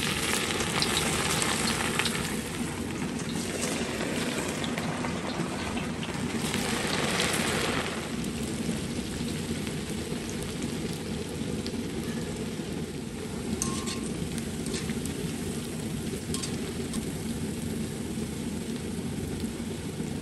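Batter-coated cauliflower florets deep-frying in hot oil in an iron kadai: a steady sizzle, fiercest in the first eight seconds as handfuls of pieces are dropped in, then settling a little lower and steadier.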